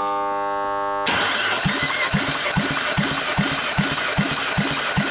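Peugeot 1.6 THP turbo petrol engine being cranked by its starter motor, with regular low compression pulses about four times a second, for a compression test on the fourth cylinder. The gauge reads 12 kg/cm². A steady buzzing tone runs for about the first second, before the cranking starts.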